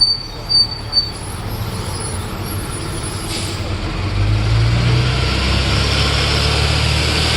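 Sightseeing bus running through city traffic, with three short high squeaks in the first second. About four seconds in, the engine hum and a hiss of wind noise grow louder.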